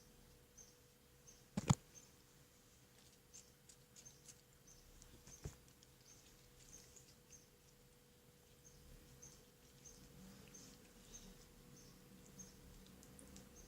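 Quiet handling of slime and its container: a sharp click about 1.7 s in and a smaller one around 5.5 s, with soft rustles between. Behind them runs a faint high chirp, repeating about twice a second, and a steady low hum.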